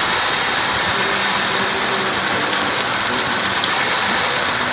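Car engine idling steadily; the engine has a misfire that has not set a check engine light.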